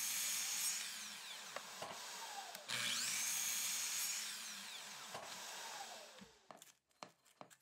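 Miter saw making two bevel cuts in a white oak bench leg. Each time the motor runs through the cut, then winds down with a falling whine. A few light knocks follow near the end.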